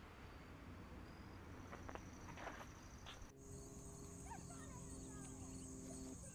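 Faint outdoor insect chorus at dusk: a steady, high-pitched pulsing trill that becomes louder and clearer about three seconds in. Under it is a faint low hum that stops near the end.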